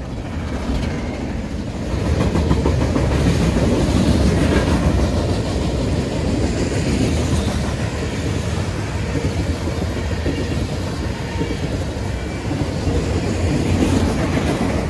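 Freight train rolling past, a steady rumble of wheels on rail that grows louder about two seconds in, with some clicking of wheels over the rails.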